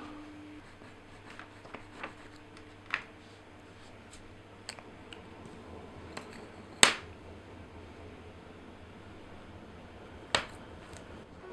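Paper being cut by hand: scattered small clicks and snips, with two sharper, louder snaps about seven and ten seconds in.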